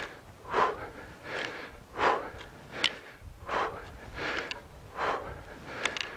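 A man breathing hard and fast from exertion, one breath about every three quarters of a second, with two brief clicks among the breaths.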